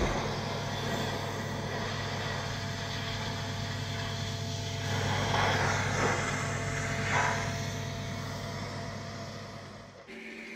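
Diesel locomotive idling sound: a steady low engine drone, with two short hissing swells around the middle. It fades down near the end.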